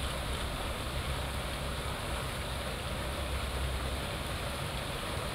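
Steady outdoor background noise: a continuous low rumble under an even hiss, with no distinct events.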